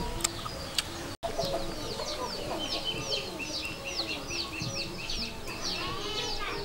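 Farmyard chickens clucking, with a rapid run of short, high, falling peeps about three a second. The sound drops out for an instant about a second in.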